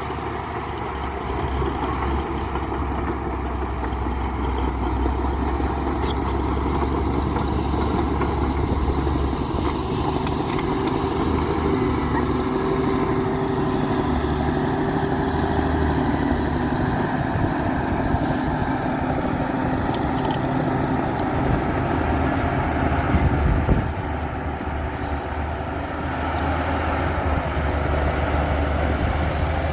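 Heavy diesel engine of earthmoving machinery running steadily under load. There is a brief louder moment about three-quarters of the way through.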